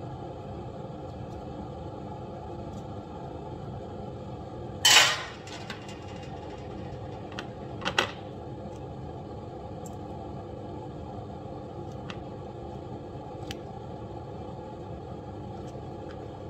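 Kitchen utensils handled over a steady background hum: a sharp metal clatter about five seconds in, as the knife is set down on the counter, then a quick double clink of a spoon against a ceramic bowl near eight seconds, and a few faint ticks later on.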